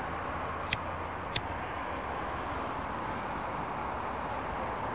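Steady outdoor background noise of distant city traffic, with two sharp clicks about half a second apart near the start.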